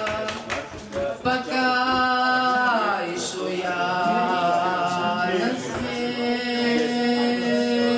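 A woman singing a slow song into a handheld microphone, holding long notes between short breaths, with one note sliding down about three seconds in.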